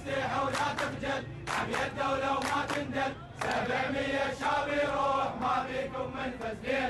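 A crowd of men chanting a slogan together in unison, phrase after phrase with short breaks between.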